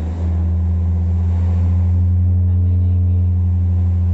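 Deep, steady bass tone played from a phone through a JBL PA sound system during a sound check. It starts just after a brief dip about a tenth of a second in and holds one pitch without change.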